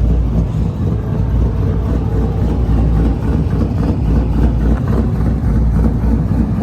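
Car engine idling steadily with a deep, even hum.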